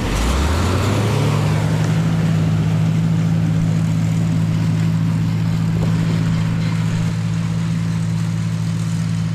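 Tractor engine revving up over about the first second, then running steadily at the higher speed.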